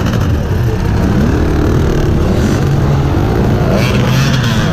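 Several enduro dirt bike engines running at once, revving up and down over one another.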